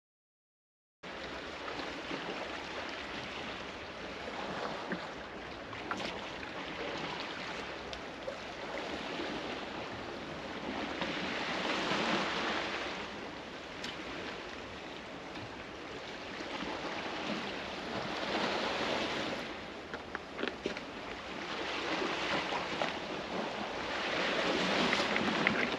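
Sea waves washing against the rocks, surging up and falling back every few seconds, starting about a second in, with a few sharp clicks.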